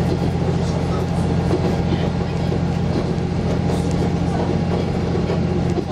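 Inside a moving diesel railcar: the engine hums steadily under the rolling noise of wheels on the track.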